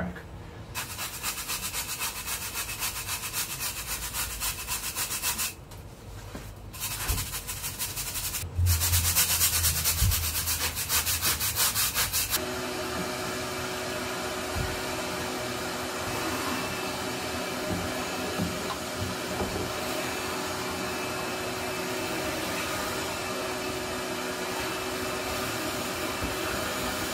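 A brush scrubbing a concrete wall in fast, even strokes, pausing briefly near six seconds. About twelve seconds in it gives way to a shop vacuum running steadily with an even hum as its nozzle is worked over the wall to clear the loosened dust.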